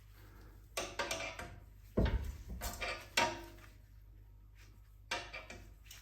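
Intermittent clanks and knocks of metal tools and suspension parts being handled while a car's front strut is worked loose and lowered, with a heavier low thump about two seconds in and a few short ringing clinks.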